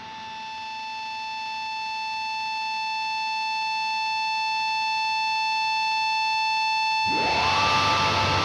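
Electric guitar through the Madrigal Sound FX Swedeath's HM2-style distortion: one high, held note that swells slowly louder. About seven seconds in, a second note slides up into it and the distorted noise thickens.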